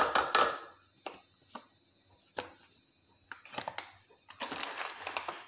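Milk powder being poured from a plastic packet into a small steel bowl: packet crinkling and powder rustling. There is a burst of rustling at the start, a few light taps in the middle, and a second, longer rustle near the end.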